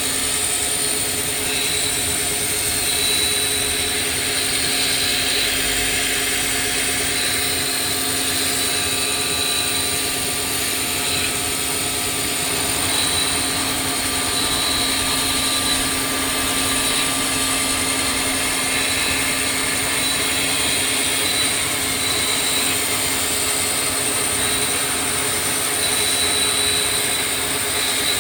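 CNC milling machine running: a steady whine and hiss with several held tones, and a high tone that drops in and out.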